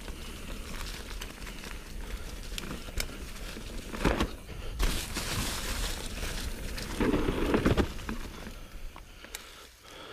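Mountain bike riding fast over a trail of dry fallen leaves: tyres crackling through the leaf litter, with the bike rattling and a few louder knocks and bumps, the loudest about four seconds in and around seven seconds.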